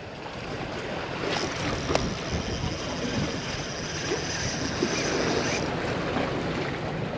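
Wind buffeting the microphone over choppy sea waves, with a thin high whine from about a second in until near the end.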